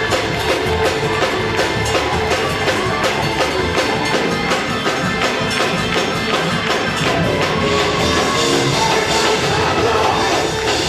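Lively church praise music played by a band with a steady, driving percussion beat.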